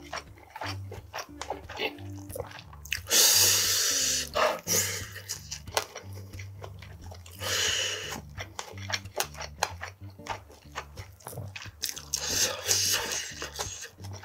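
Close-miked chewing of a mouthful of food, many small wet clicks and crunches, with three louder rushes of hiss about three, seven and a half, and twelve seconds in, over quiet background music.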